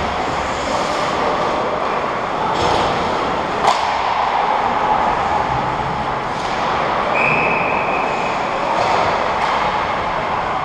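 Ice hockey rink ambience: a steady echoing noise with skates scraping on the ice, one sharp crack a few seconds in, and a brief high steady tone about two-thirds of the way through.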